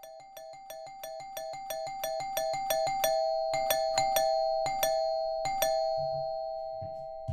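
Bell-like electronic chimes repeat faster and faster over a steady two-note tone. Several louder, uneven rings come between about three and six seconds in.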